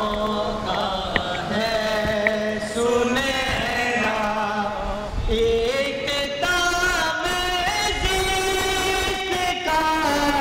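Men's voices singing a naat, an unaccompanied devotional praise poem, in long held, ornamented lines that rise and fall in pitch.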